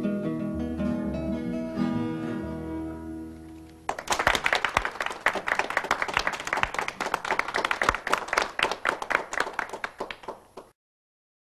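Bluegrass gospel background music. The held notes at the end of a song fade out, then about four seconds in a fast run of plucked-string picking starts and cuts off abruptly near the end.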